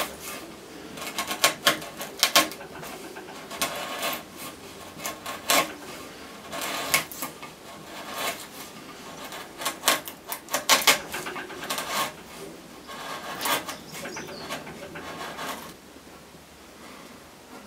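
Bench chisel pared by hand through wood, cleaning out a recess: irregular runs of crisp slicing and scraping cuts as chips come away, dying down near the end.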